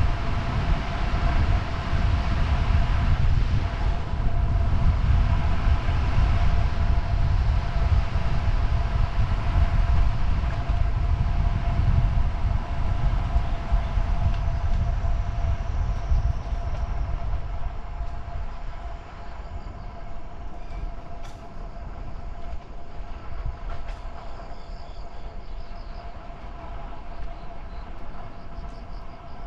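Steady low rumble of wind and road noise with a constant whine throughout, easing off somewhat about two-thirds of the way through.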